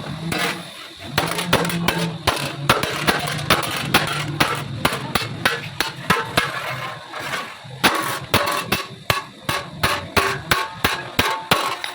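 Hammer striking metal over and over in sharp blows, a quick run at first, then a short lull, then steady blows about two or three a second.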